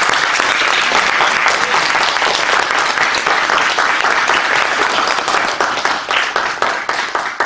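Audience applause: many people clapping hands in a dense, steady patter that thins out near the end.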